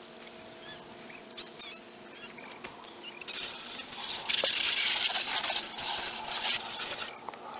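Garden hose spray nozzle spraying water into plastic buckets, rinsing and refilling animal water containers; the spray starts about three seconds in and cuts off shortly before the end. A few short high chirps sound before it.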